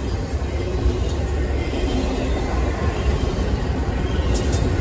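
Double-stack intermodal container freight train rolling past: a steady rumble of its wheels on the rails.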